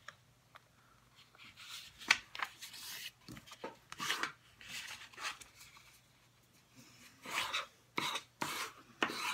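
Bone folder scraping along a diagonal fold in a sheet of paper, burnishing the crease in a series of short, uneven rubbing strokes, with the paper sliding and rustling under the hands.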